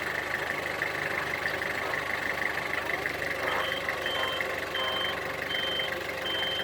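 A truck's engine runs steadily. About halfway through, its reversing alarm starts: a high, short beep repeating evenly, about three beeps every two seconds.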